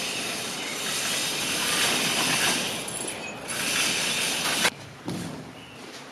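Large sectional garage door coming down, a steady noisy rumble of the door running in its tracks that stops abruptly a little over four and a half seconds in.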